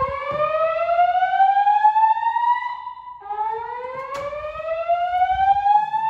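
Fire alarm speaker strobes from a Notifier NFS2-640 voice evacuation system sounding a slow whoop tone. A rising whoop tops out and stops about three seconds in, and the next whoop begins climbing straight after.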